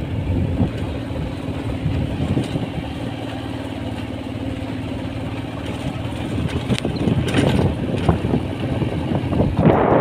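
A vehicle's engine running at a steady low pitch as it travels along, with wind buffeting the microphone. The buffeting grows loud near the end.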